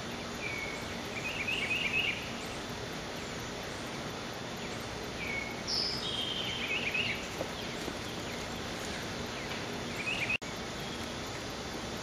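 Eastern bluebird giving short, soft warbled phrases three times over a steady outdoor hiss.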